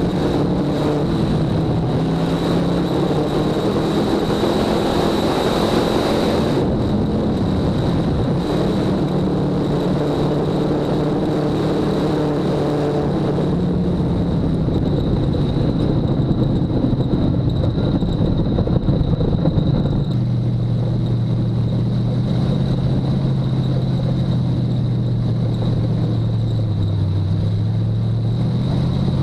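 Dirt-track race car's engine heard from inside the cockpit, running at low revs while the car rolls slowly, its pitch drifting a little and settling lower about two-thirds of the way through.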